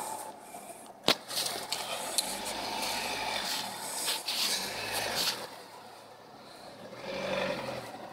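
Ford Kuga SUV driving over snow, slush and frozen ruts, its tyres crunching and scraping in uneven stretches, with one sharp knock about a second in.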